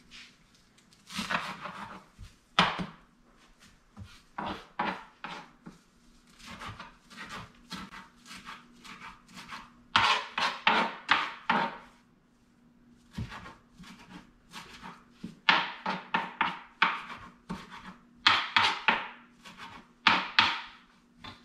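A knife chopping fresh cilantro on a cutting board: quick runs of sharp knocks, several a second, broken by short pauses about five times.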